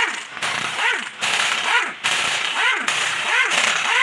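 Impact wrench hammering out the end-cover bolts of a Sauer-Danfoss hydraulic drive motor, in several short bursts, each rising in pitch as the wrench spins up.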